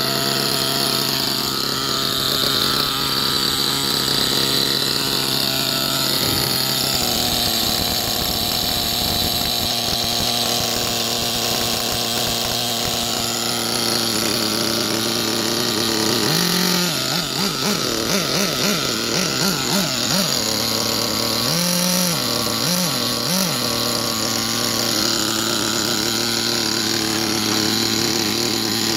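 Alpha .28 two-stroke nitro engine of a VRX-2 1/8-scale RC buggy idling, with its pitch surging up and down several times about halfway through before steadying again. The engine is still being broken in, so it runs a little rough and may stall.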